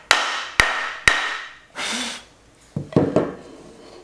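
Three sharp hammer blows about half a second apart, each with a short ring, knocking the pine box joint together. After a short rustle, a few dull wooden knocks follow near the end as the joined 2x6 boards are set down on a wooden workbench.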